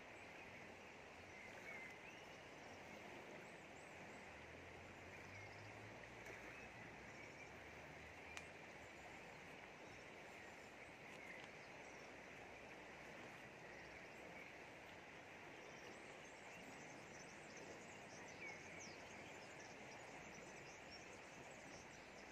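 Faint, steady rush of a fast-flowing river, with scattered faint bird chirps. One sharp click about eight seconds in.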